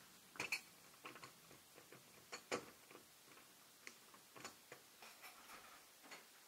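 Metal ball doorknob turned and rattled over and over, a string of irregular clicks and latch rattles, loudest about half a second and two and a half seconds in.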